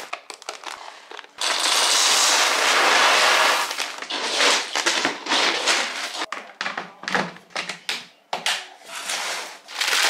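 Small dry dog kibble pouring out of a paper bag into a plastic storage bin: a steady rattling rush for about two seconds, then irregular rustles and clatters as the bag crinkles and the kibble is stirred by hand.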